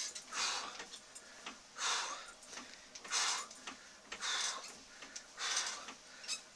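A person breathing hard in an even exercise rhythm while working an elliptical trainer: five loud breaths about one every 1.2 seconds, with faint ticks between them.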